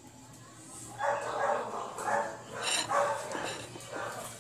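A dog barking repeatedly, a run of short barks about two a second starting about a second in.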